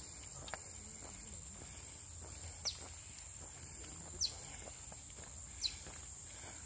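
Forest insects keeping up a steady high-pitched drone, with a bird giving a short, high falling note three times, about a second and a half apart.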